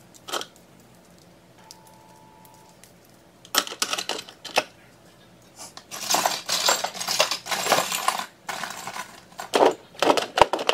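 Metal jewelry clinking and rattling as it is handled and sorted into a clear acrylic organizer: a few separate clicks, then a long stretch of jingling from about six seconds in, and more clicks near the end.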